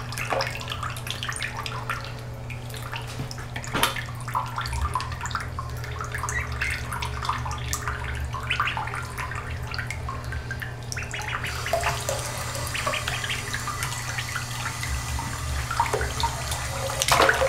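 Two ducklings splashing and paddling in water in a bathroom sink, a stream of small irregular splashes and drips.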